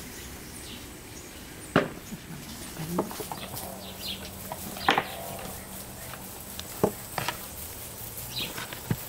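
About six short, sharp clicks and knocks, spaced irregularly, as apples and apple slices are handled over a plastic bowl and metal basin while being threaded onto string for drying. A faint, steady low hum runs underneath.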